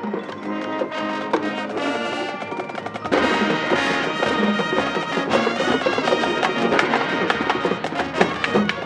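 High school marching band playing. A lighter passage with sharp percussion clicks gives way, about three seconds in, to the full band entering louder with brass and deep low end.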